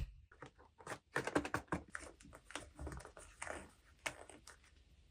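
Small plastic toy pieces being handled and set down: a quick, irregular run of clicks and light knocks, like typing.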